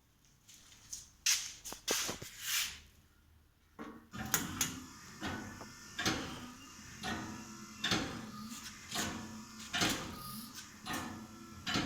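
Motor-driven mechanism of a low-cost mechanical ventilator prototype: after a few scattered handling noises it starts about four seconds in and runs with a steady whine and a sharp click about once a second, the rhythm of its breathing cycle.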